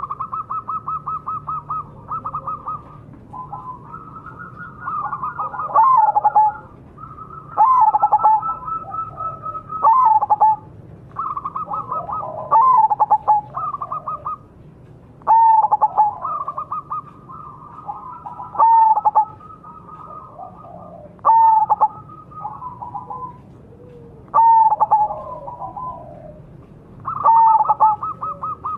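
Zebra dove (perkutut) singing its cooing song: each phrase opens with a rapid stuttering trill and ends in louder coos that fall in pitch, repeated every two to three seconds.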